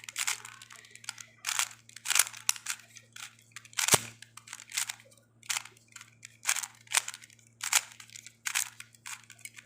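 A plastic Rubik's cube's layers being turned quickly, an irregular run of clicks and clacks, with one sharper click about four seconds in. A faint steady low hum sits underneath.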